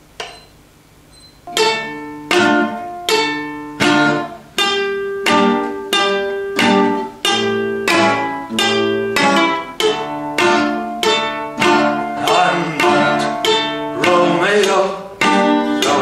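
Acoustic guitars strumming chords together in a steady rhythm, about one strum every three-quarters of a second, starting about a second and a half in.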